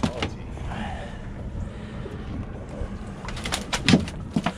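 A steady low rumble of wind and water around a small fishing boat, with a cluster of sharp knocks and clicks on the boat near the end, the loudest about four seconds in.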